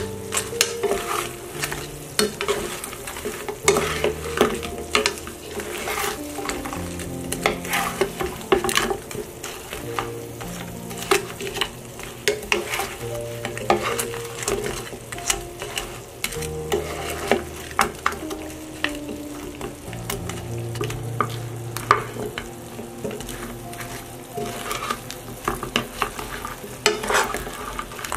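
Wooden spatula and wooden fork scraping and clacking in a nonstick frying pan as fried chicken wings are tossed in a thick sauce, with many quick clicks and the sauce sizzling underneath.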